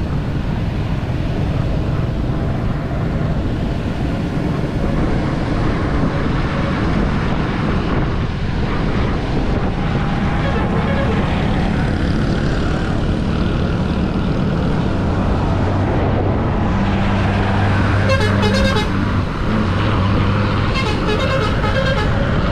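Steady road and wind noise of a vehicle moving through traffic on a wet road, with vehicle horns tooting twice near the end.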